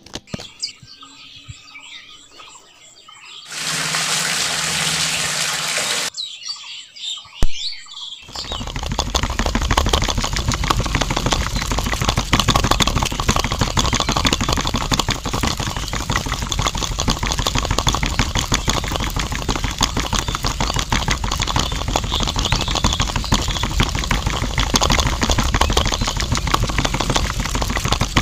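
Water pouring into a small metal can of sand for a couple of seconds, then a click, and a small DC motor starts and runs steadily with a fast, dense rattle as it churns the wet sand into slurry.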